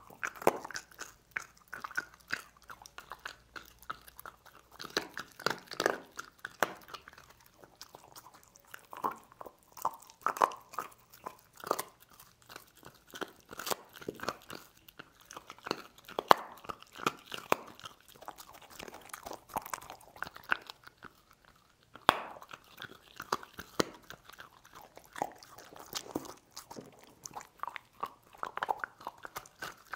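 A dog chewing and crunching pork bones, with irregular wet crunches of bone between its teeth and a few sharp cracks standing out.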